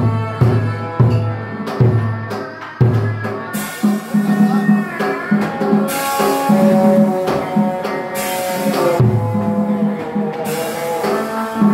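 Tuồng theatre ensemble music: deep drum strokes beat about twice a second at first, then a long wavering melody line carries on over repeated cymbal crashes.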